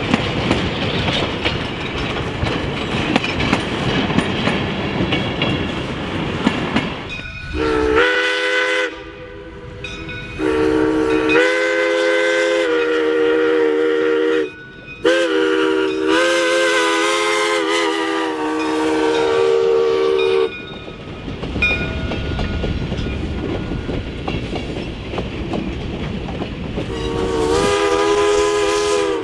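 Baldwin 0-6-0 steam locomotive's whistle sounding a chord of several notes in long blasts, about seven seconds in and again to about twenty seconds, with a short break between blasts. Another blast starts near the end. Between blasts the train's running rumble and rail clatter fill in.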